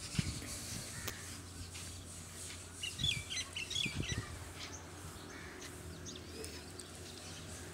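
Small birds chirping, with a quick run of short high chirps about three seconds in, over a few dull low thumps.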